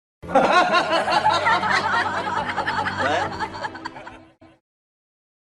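A laughing sound effect: a voice snickering and chuckling for about four seconds. It starts suddenly out of silence and fades out near the end.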